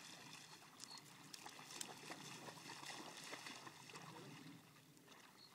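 Near silence: faint lapping and light splashing of shallow lake water, with small scattered ticks. It grows a little quieter about four and a half seconds in.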